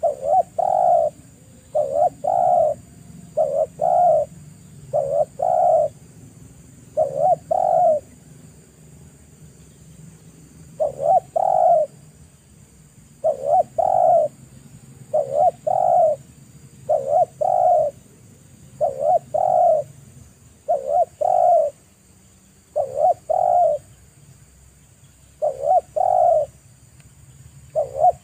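Spotted dove cooing: a repeated two-part coo, a short note followed by a longer, louder one, about once every second and a half, with a pause of a few seconds about a third of the way through.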